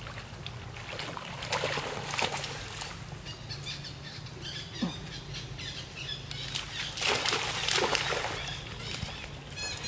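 Water splashing and sloshing as monkeys swim through a muddy pond, in two bouts: one about a second and a half in, and a louder one around seven to eight seconds in.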